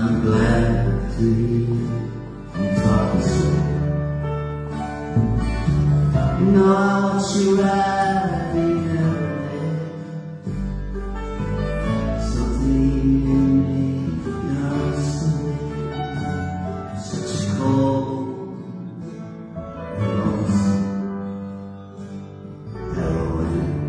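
Live acoustic band playing a slow song: piano, acoustic guitars and double bass, with a voice singing over them.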